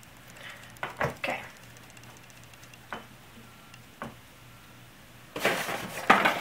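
A few light clicks and knocks as a small die-cast metal model wheel loader is handled and set down on a tabletop, then, near the end, a clear plastic blister tray and packaging rustling and crinkling, louder than the clicks.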